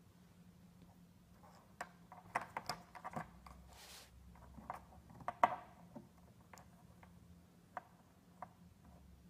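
Scattered light clicks, taps and rustles of a cat rolling and pawing on a carpet, in a cluster about two to three seconds in and again around five and a half seconds, with a few single ticks later.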